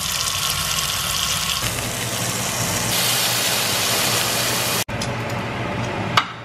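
Tap water running into a stainless-steel bowl of maitake mushrooms, then a steak sizzling in a cast-iron skillet. The sound changes abruptly a few times as shots cut.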